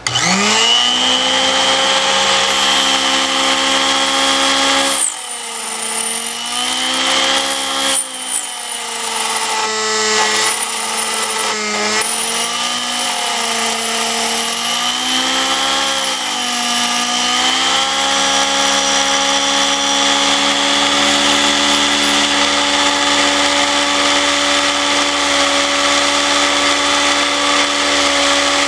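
Key duplicating machine's motor starting up with a rising whine, then running as its cutter cuts a non-ferrous key blank; the whine dips and wavers in pitch several times in the middle as the cutter bites during the back-and-forth cutting passes, then runs steadier.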